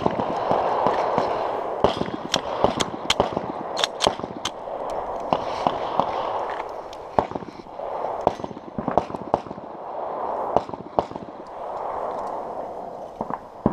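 Scattered pistol shots from other shooters on the range, heard at a distance, a dozen or more at irregular intervals, over rushing wind noise on the microphone.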